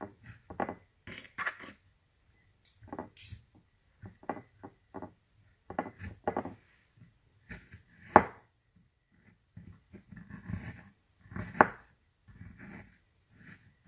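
A table knife scraping and tapping against a glass custard cup and the apple while filling is pushed into the apple's core: irregular light clicks and scrapes, with two sharper knocks about 8 and 11.5 seconds in.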